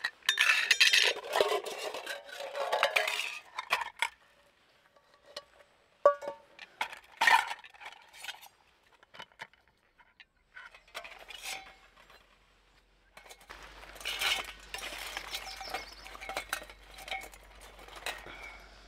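Metal camp cookware and utensils clinking and clattering in short, irregular bursts with quiet gaps between them.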